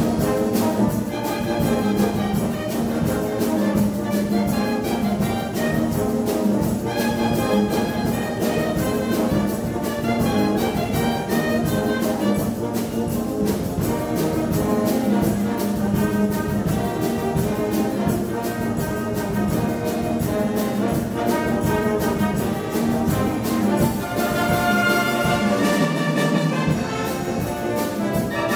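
A wind band playing live: trombones, trumpets and clarinets together over a steady beat. Near the end the low parts drop out for a moment before coming back in.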